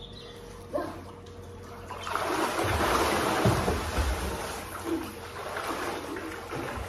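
Swimmers splashing through pool water with kicking and arm strokes, the splashing swelling from about two seconds in, loudest for a couple of seconds with a few dull thuds, then easing off.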